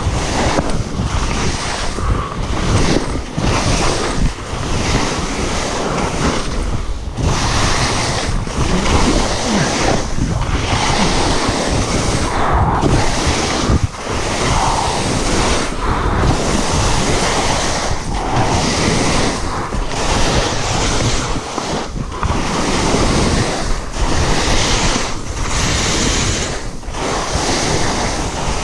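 Skis scraping and hissing through soft spring snow on a steep descent, surging and dropping with each turn about every one to two seconds, with wind rushing on the microphone.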